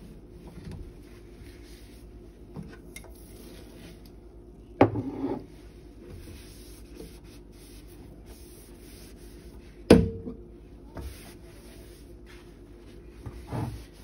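Cloth rubbing and wiping over a stainless steel kitchen sink, with two sharp knocks, about five and ten seconds in.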